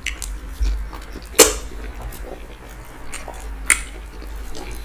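Eating sounds as fufu with ogbono and okra soup is worked by hand and chewed: soft wet mouth noises broken by a few sharp clicks, the loudest about a second and a half in and another near four seconds.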